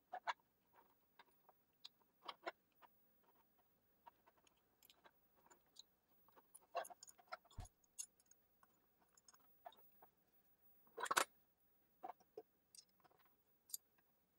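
Faint, scattered clicks and clinks of a metal filament bracket and small screws being handled and fastened with a hex key, with a sharper knock about 11 seconds in.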